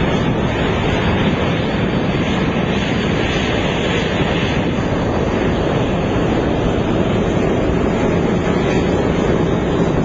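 Rear-mounted turbofan engines of an Embraer ERJ-145 regional jet running as it taxis, a loud, steady, even engine noise with no break.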